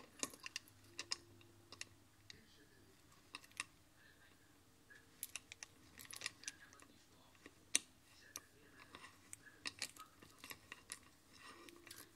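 Light, irregular metallic clicks and ticks, some in quick clusters, from a broken pin lock on a hinge as its knob and pin are turned by hand. The lock turns freely instead of catching.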